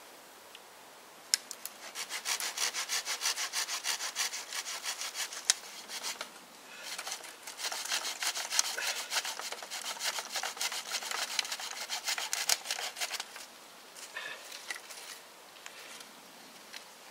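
Small hand saw cutting through a wooden stick in quick, even strokes. It goes in two runs with a short pause about six seconds in, then a few fainter scrapes.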